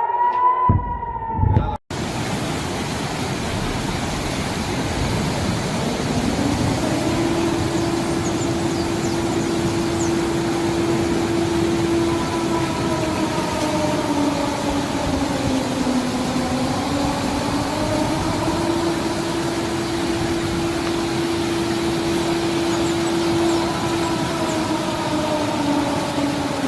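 Civil defence warning siren winding up to a steady wail a few seconds in, dipping in pitch midway, rising again and starting to wind down near the end, over a constant hiss.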